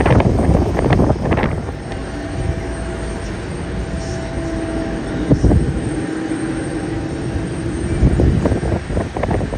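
Jet airliner engine noise: a low steady drone with a held engine tone through the middle, buffeted by wind on the microphone in gusts at the start and again near the end.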